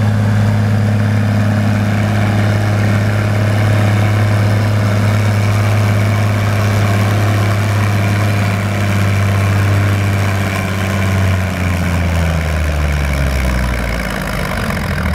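Minneapolis-Moline tractor engine running hard under full load, pulling a weight-transfer sled. The note holds steady, then its pitch drops over the last few seconds as the engine lugs down against the building load of the sled.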